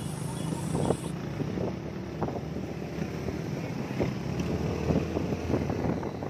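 Motorcycle engine running steadily at riding speed, with wind buffeting the microphone of a camera carried on a moving motorcycle.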